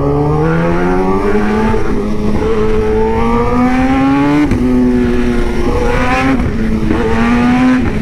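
Kawasaki sport bike engine accelerating hard. Its pitch climbs and then drops back at each gear change, several times over.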